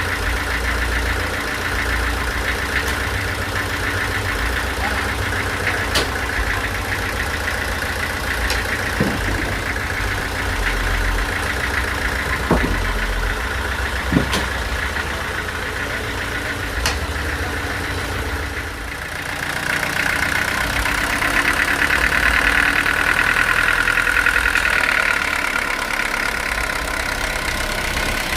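Sawmill machinery running steadily: an engine hum under a higher whine, with a few sharp knocks. The whine briefly dips about two-thirds of the way through, then comes back louder.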